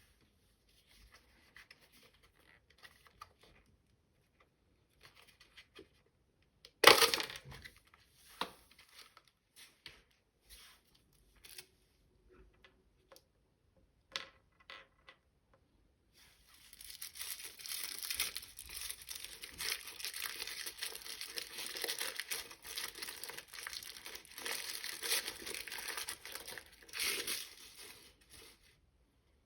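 Toy packaging being torn and crinkled open by hand. There is one sharp rip about seven seconds in, then a few small clicks and rustles, and a long stretch of steady crinkling and tearing from about halfway until near the end.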